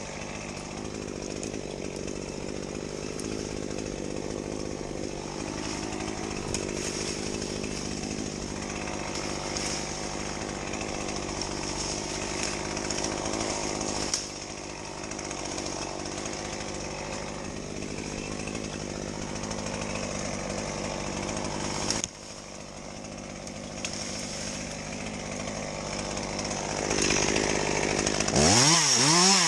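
Two-stroke chainsaw running steadily at moderate level, with two sudden dips in level, then revved hard near the end with rising and falling pitch.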